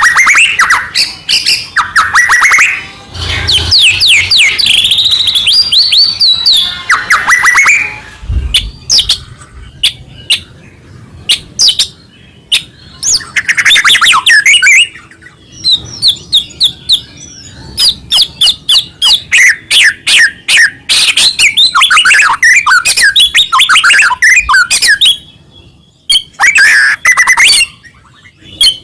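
White-rumped shama (murai batu) singing loudly and almost without stopping: a long, varied song of rapid chirps, whistled slurs and trills, broken by a few short pauses.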